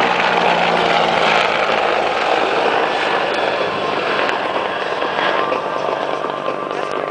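CH-146 Griffon twin-turbine military helicopter in a maximum-rate climb: a steady, loud wash of rotor and engine noise with a low hum, slowly growing fainter.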